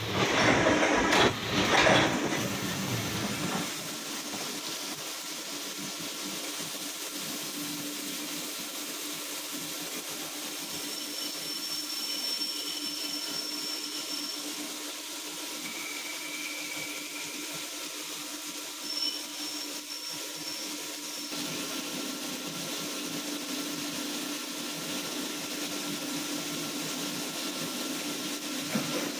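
CNC vertical machining centre milling a steel shaft turned on its rotary axis under flood coolant: a steady hiss of coolant spray with a low machine hum and faint high whistles from the cut. A louder, rougher burst of machine noise comes in the first few seconds.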